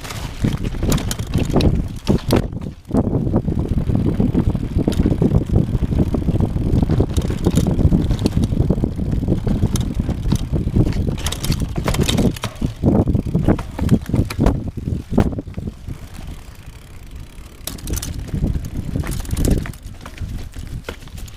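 Mercier Elle mountain bike being ridden over a dirt trail: a rough tyre rumble with scattered clicks and rattles from the bike, easing off for a few seconds near the end.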